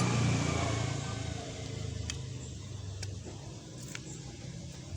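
A vehicle engine's low, steady hum fades away over the first couple of seconds, leaving a few faint, light clicks.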